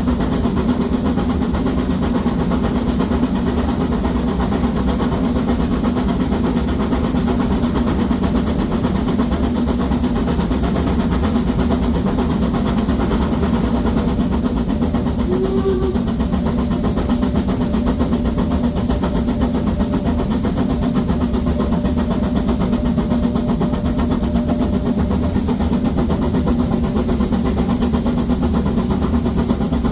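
Narrow-gauge steam locomotive 99 7240-7 working hard up a steep 1:25 grade with a heavy train, giving a steady loud exhaust and running noise.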